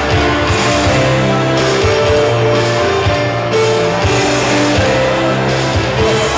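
Music playing, with held notes over a steady bass line.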